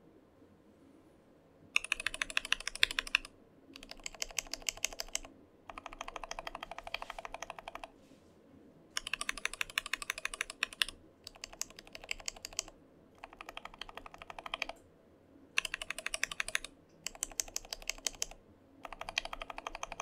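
Zeal Tealios V2 linear mechanical keyboard switches being pressed rapidly. There are about nine short runs of quick keystrokes, with brief pauses between them, comparing a stock switch, a lubed switch and a lubed-and-filmed switch.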